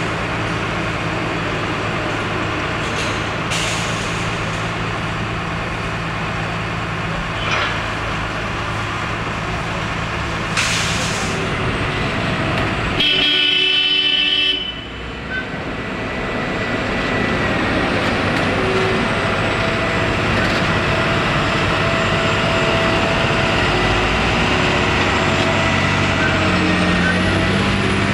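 Kirow rail crane's diesel engine running steadily as the crane and its wagons move slowly past. Halfway through a horn is sounded once for about a second and a half.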